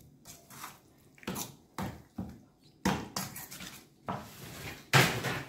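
Steel spoon scraping and clinking against a stainless steel bowl while stirring chicken in a thick yogurt marinade, in irregular strokes, the loudest near the end.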